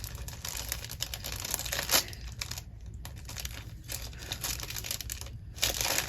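Packaging and stationery items being handled, crinkling and rustling, with a louder crinkle about two seconds in and another near the end.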